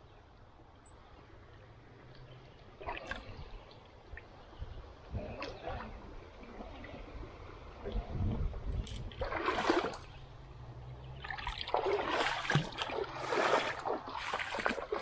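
Shallow river water splashing as someone wades and handles a caught trout in it: a few separate splashes in the first half, then louder, busier splashing in the last few seconds.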